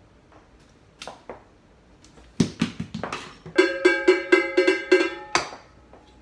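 A wooden spoon banged against a white pot: a few scattered knocks, then a run of about eight quick strikes, roughly four a second, each leaving the pot ringing.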